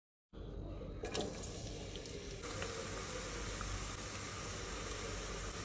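Sliced onions frying in oil in a pot, a steady sizzle that fills out about two and a half seconds in. Before that there is a quieter hiss with a single knock about a second in.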